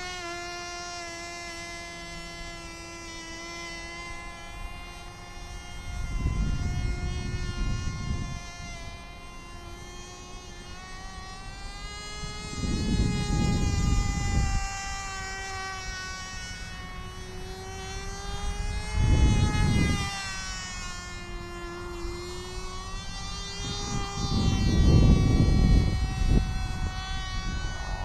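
Cox TD .010 miniature glow engine buzzing with a thin, high, mosquito-like whine as the model airplane flies overhead, its pitch slowly rising and falling as the plane passes. Four low rumbling bursts, louder than the engine, break in along the way.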